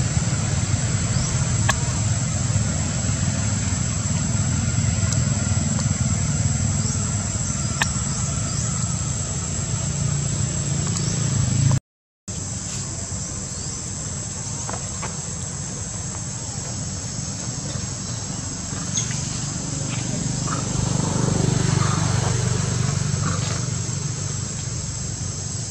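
Outdoor ambience: a steady high insect drone over a continuous low rumble, with a few faint ticks. The sound cuts out completely for a moment about twelve seconds in.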